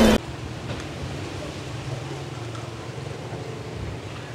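A loud film soundtrack cuts off abruptly a moment in. It leaves a steady low rumble of wind on the microphone outdoors.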